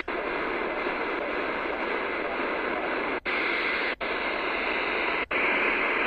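Static hiss from a portable medium-wave AM receiver tuned between stations. The hiss cuts out briefly three times, about a second apart near the end, as the receiver mutes on each step to the next frequency.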